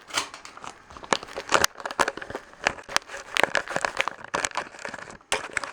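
Irregular crackling and rustling, made up of many short sharp clicks with no steady rhythm.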